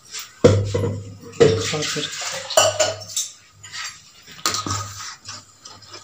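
Steel kitchen utensils clanking and clinking against a stainless steel bowl as the batter is handled: a series of sharp metallic knocks with some ringing, the loudest about half a second and a second and a half in.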